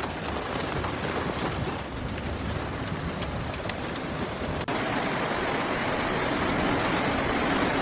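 Heavy rain pouring down, with scattered sharp ticks of drops striking. About two-thirds of the way through it cuts abruptly to a steadier, slightly louder rush of water.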